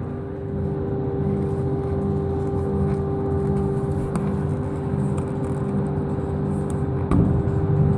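Workshop dust extractor motor running with a steady, even whir, and a short knock about seven seconds in.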